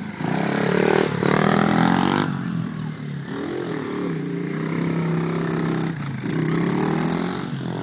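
Small mini dirt bike (pit bike) engine revving hard as the rear wheel spins on grass and dirt about a second in, then running at a steadier, lower note as the bike rides on.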